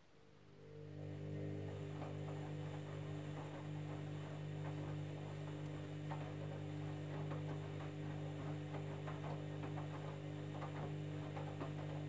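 Candy washing machine's drum motor starting and then running steadily, a hum that builds over about the first second. Water and the jeans load slosh and patter irregularly as the drum tumbles them in the wash phase.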